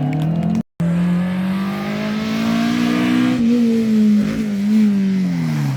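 Rally car engine pulling hard, its note climbing steadily for about three seconds, then falling away as the throttle eases. A brief dropout to silence comes just under a second in.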